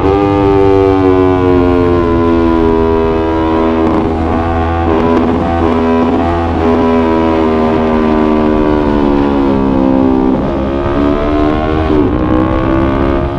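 Yamaha YZF-R3's parallel-twin engine running under way. Its note sags slowly for most of the stretch and rises sharply a couple of times near the end, over a low steady rumble of wind and road.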